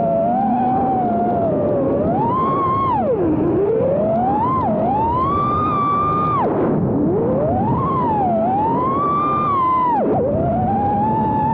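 Motors and propellers of a 5-inch FPV racing quadcopter with T-motor brushless motors whining, heard from the GoPro on board. The pitch rises and falls with the throttle and drops steeply three times where the throttle is cut, then spools back up.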